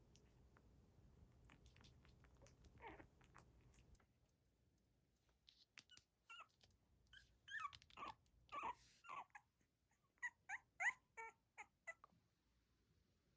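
Newborn poodle puppies whimpering and squeaking: one drawn-out falling whimper about three seconds in, then a quick string of about a dozen short, high squeaks in the second half.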